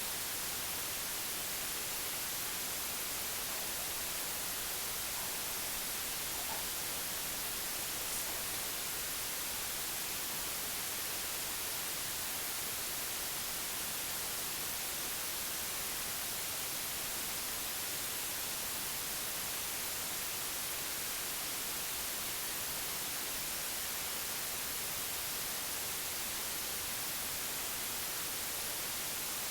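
Steady, even white noise, a soft hiss with most of its energy in the high frequencies, unchanging throughout.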